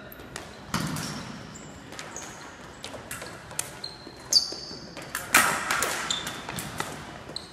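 Sabre fencing footwork and blade play: sneakers squeaking and stamping on the gym floor, with sharp clicks of blades meeting. The loudest hits come about four and a half and five and a half seconds in.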